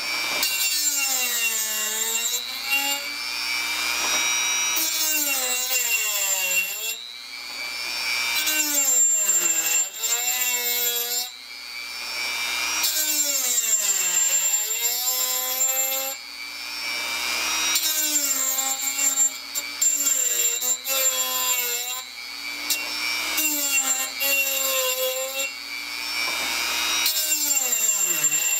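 Dremel rotary tool with a small grinding stone sharpening the teeth of a steel hole saw. The motor's whine sags in pitch as the stone bites down a tooth into the gullet, then climbs back between teeth, over and over every two to four seconds, under a gritty grinding hiss.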